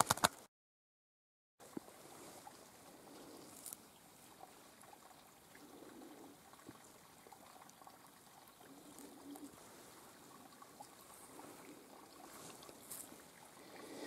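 Faint steady trickle of snowmelt water in a small rivulet, with a few light clicks. The sound drops out completely for about a second near the start.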